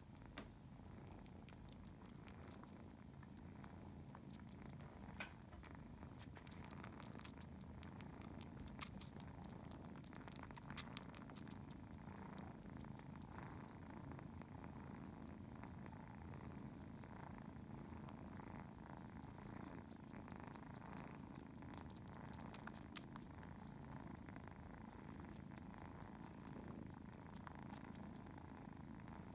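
Mother cat purring steadily and softly while nursing her kitten, with a few faint clicks scattered through the first half.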